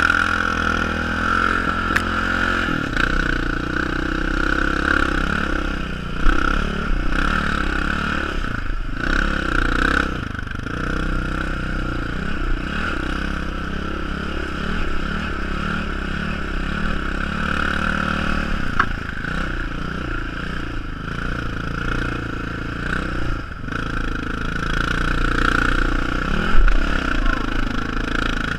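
Sport quad (ATV) engine running under the rider, revs rising and falling again and again as it rides a rough dirt trail, with some rattling from the machine.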